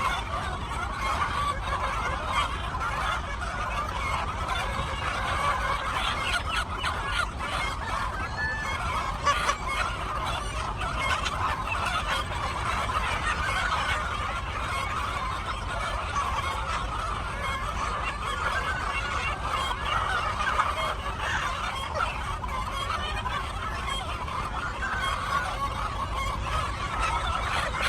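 A flock of chickens clucking and calling continuously, many overlapping voices with an occasional louder call.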